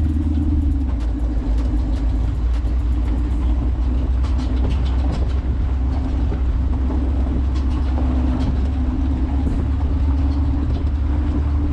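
Jeep driving along a dirt trail: a steady low engine and drivetrain drone, with many small clicks and rattles, most of them in the first few seconds.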